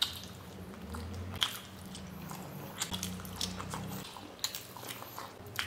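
Close-miked eating sounds: someone biting into and chewing food, with scattered short wet clicks and smacks.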